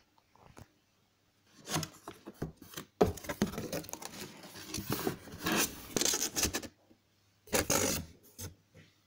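Cardboard box being opened by hand: the lid and flaps scraping and rubbing, and the packing inside rustling, in a long stretch of handling noise, then a shorter burst near the end.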